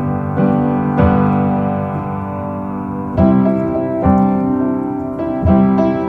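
Background music: piano chords struck about once a second, with no singing.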